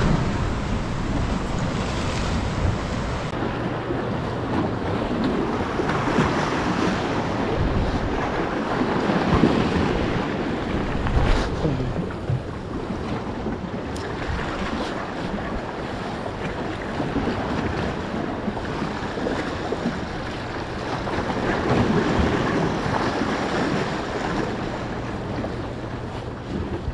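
Choppy sea waves washing and breaking, the rush swelling louder several times, with wind buffeting the microphone.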